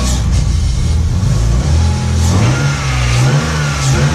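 BMW M52B28 2.8-litre inline-six engine running with its accessory drive belt removed, its speed rising slightly about halfway through. It runs smoothly with no knock, which points the earlier knocking to a belt-driven part: water pump, alternator or power-steering pump.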